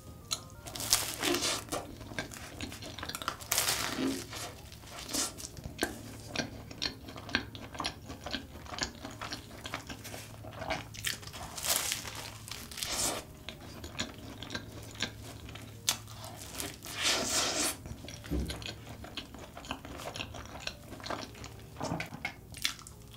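Close-miked biting and chewing of a large choux cream puff drizzled with melted Nutella chocolate: many short mouth clicks and smacks, with a few louder bites.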